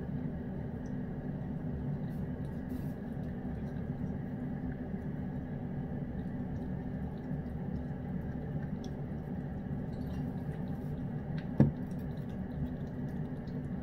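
Cat licking and eating from a hand-held bowl, with faint wet ticks and a little water dripping into the bowl from a bottle, over a steady low hum. One sharp click near the end.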